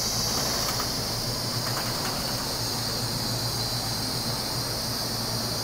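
Taiwan Railways EMU3000 electric multiple unit creeping along the platform as it pulls in to stop, giving a steady high hiss over a low hum.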